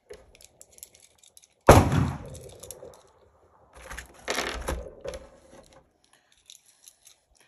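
Two loud gunshots at a shooting range. The first, about two seconds in, hits suddenly and rings out for about a second; the second comes about two seconds later. Faint clicks are heard between and after them.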